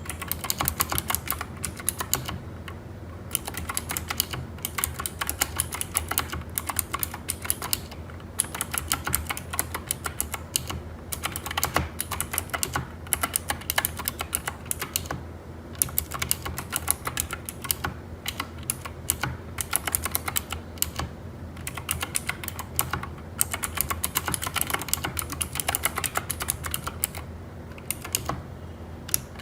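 Typing on a Keychron K4 v2 mechanical keyboard with clicky Gateron Blue switches, its keycaps filled with silicone: fast, steady runs of key clicks with a few short pauses.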